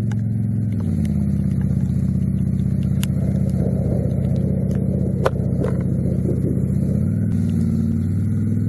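Motorcycle engine running steadily under way, its pitch shifting briefly near the start and again about seven seconds in, with one sharp tap about five seconds in.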